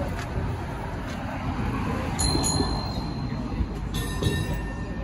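Open 1896 Hammond streetcar running along its rails, heard from aboard: a steady low rumble. A brief high metallic ring comes about two seconds in, and another begins near the end.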